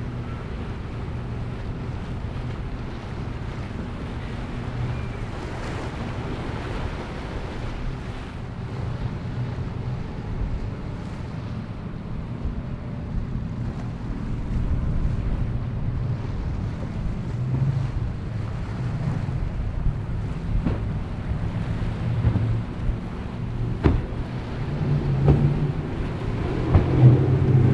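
Powerboat engines droning over splashing waves and wind on the microphone as boats run through choppy inlet water. The engine noise grows louder over the last part as a powerboat comes close, with a few sharp thumps as its hull slams the waves.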